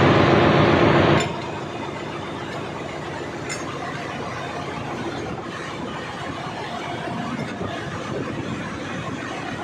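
Steady engine-room machinery noise on a ship, a dense running din. It is louder for about the first second, then drops and holds level.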